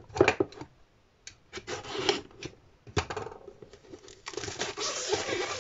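Shrink-wrap plastic being opened and torn off a cardboard craft-kit box: a few taps and scrapes with one sharp knock about three seconds in, then steady crinkling of the film from about four seconds in.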